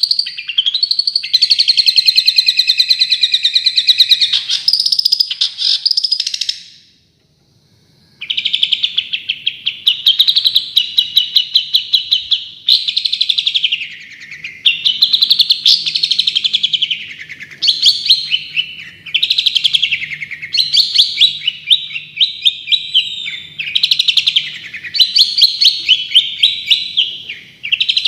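Recorded songbird song of very rapid, stuttering trills in the 'tembakan' (shot) style used as tutor material for long-tailed shrikes. The phrases repeat and sweep up and down in pitch, with a break of about a second and a half roughly a quarter of the way in.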